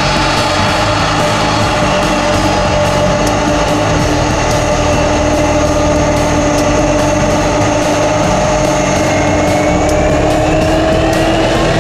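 Aircraft engines running steadily with a continuous droning tone, which rises slightly in pitch near the end.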